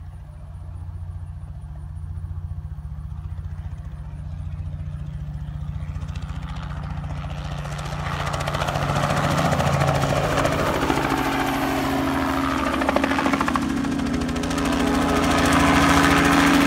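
Small two-bladed crop-spraying helicopter approaching low and passing close overhead. Its engine and rotor are faint at first, grow louder from about six seconds in, dip briefly in the middle and are at their loudest near the end, with the pitch sliding as it goes by.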